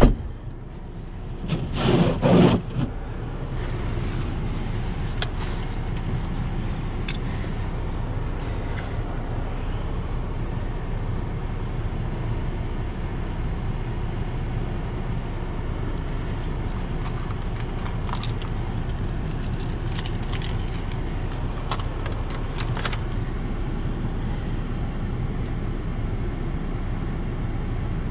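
Steady hum of a car idling, heard from inside the cabin, with a few faint scattered ticks. A brief loud rustling noise comes about two seconds in.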